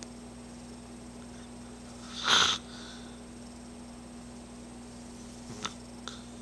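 A sleeping Boston Terrier gives one loud snore lasting about half a second, about two seconds in. Two faint clicks follow near the end.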